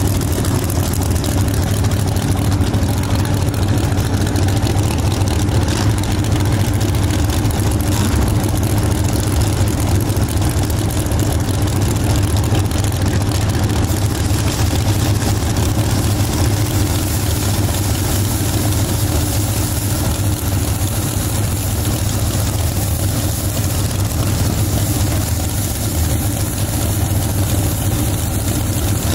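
Drag race cars' engines idling at the starting line with a loud, steady low rumble that never revs up.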